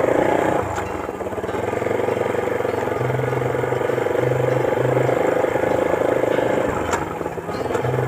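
A motorcycle engine running steadily under way, heard from the rider's seat, with one sharp click about seven seconds in.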